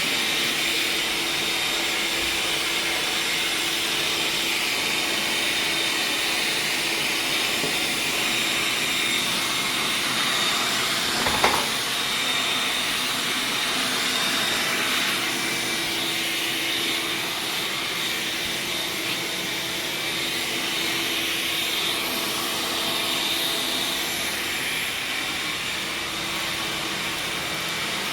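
Vacuum cleaner running steadily, with one sharp knock about eleven seconds in.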